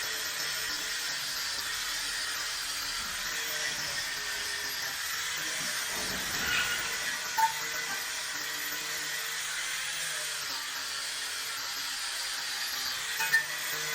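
Steady hissing noise, with faint soft musical notes underneath and two short high blips, one about halfway through and one near the end.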